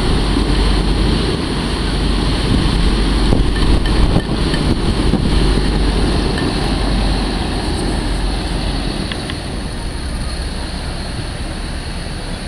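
Griffon 12000TD hovercraft running its engines, lift fans and ducted propellers during systems testing: a loud, steady roar with a heavy low rumble that eases off somewhat about two-thirds of the way through.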